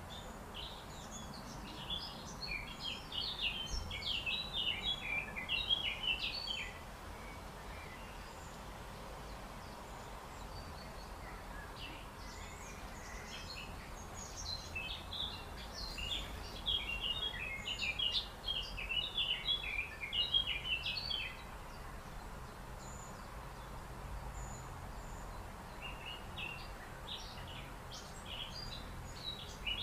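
Small songbirds singing in quick, high twittering phrases, in three bouts of several seconds each, over a faint low rumble.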